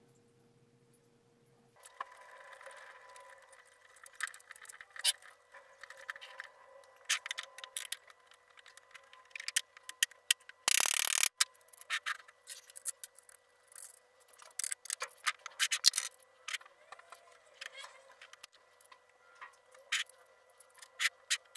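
Steel parts of a homemade angle grinder stand being handled and fitted by hand: scattered metallic clicks, knocks and short scrapes as bolts, nuts and the welded steel pivot arm are set on the stand, with a half-second burst of louder scraping noise about eleven seconds in.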